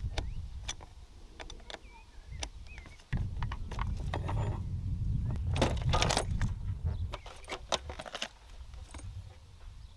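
Metal hand tools clinking and clicking, with a burst of clinks near the middle, over a low rumble. This is the sound of work on the car's battery fittings.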